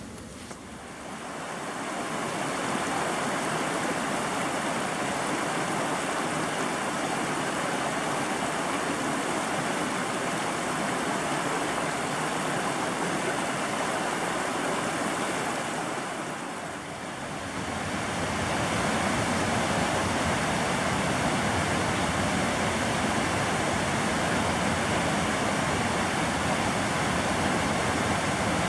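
Creek water pouring over small cascades and a low waterfall: a steady rush of falling water. It fades in at the start, dips briefly about two-thirds of the way through, and comes back a little louder.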